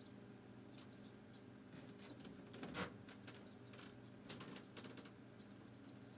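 Faint, irregular scratching and clicking, the mystery noise being listened for, with a louder scrape a little before halfway.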